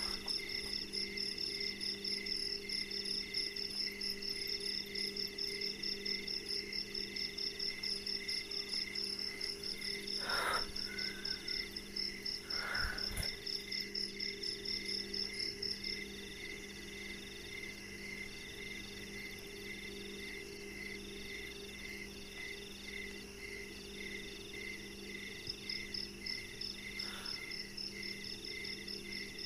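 Night chorus of crickets and other insects: several steady pulsing trills at different pitches over a low drone. The highest trill stops about halfway through and starts again near the end. Two short, faint sounds come a couple of seconds apart near the middle.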